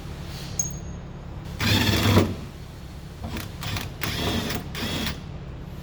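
A handheld power tool running in short bursts: one longer burst about two seconds in, then several shorter ones, over a steady low hum.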